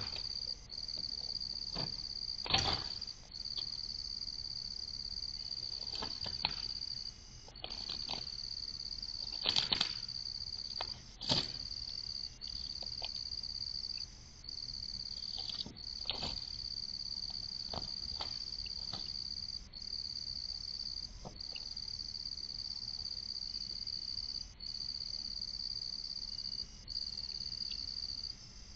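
Night insects, crickets or katydids, trilling steadily in a high continuous chorus that breaks off briefly every few seconds. A few sharp clicks sound over it, the loudest about two and a half seconds in and again around ten to eleven seconds in.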